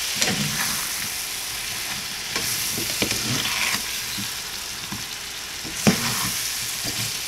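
Apple slices sizzling in melted butter and brown sugar in a nonstick skillet while being stirred with a slotted spatula, which scrapes and taps against the pan. A sharper knock of the spatula on the pan stands out about six seconds in.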